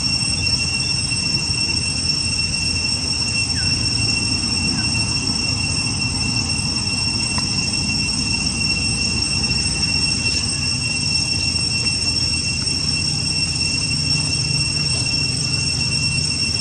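A steady, unbroken high-pitched whine held at one pitch, over a constant low rumble.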